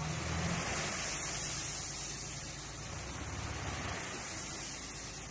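Gravel pouring steadily off the raised bed of a dump truck in a continuous hiss, with the truck's engine running low underneath as it creeps forward spreading the load.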